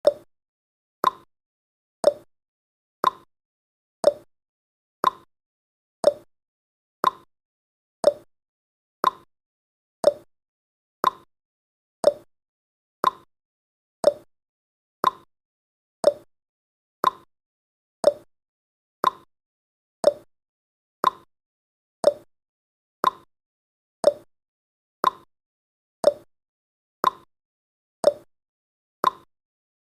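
Countdown timer's tick sound effect: a short, sharp tick once every second, marking off each second of the count.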